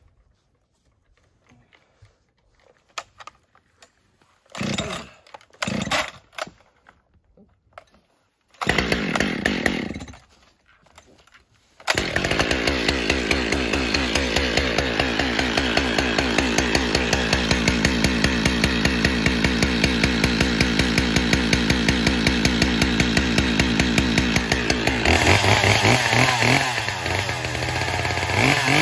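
Husqvarna 445 two-stroke chainsaw being started: a few short loud bursts in the first ten seconds, then the engine catches about twelve seconds in and idles steadily with an even firing beat. Near the end the throttle opens and the engine revs up.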